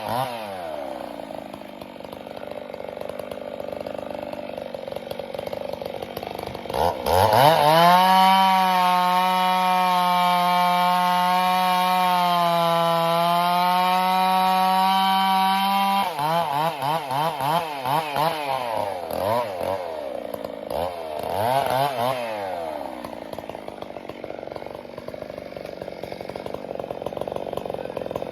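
Gasoline chainsaw revving: its pitch falls back at first, then about seven seconds in it climbs sharply to full throttle and holds steady for around nine seconds, as in a cut through wood. It then drops off, blips up and down several times, and settles into a lower, steady run.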